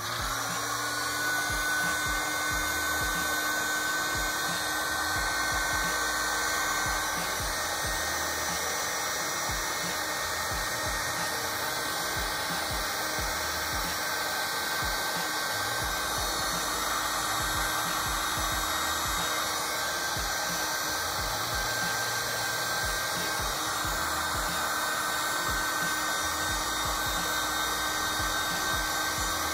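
Electric heat gun running steadily, a rush of air with a steady whine, shrinking heat-shrink sleeving over the motor phase-wire connections.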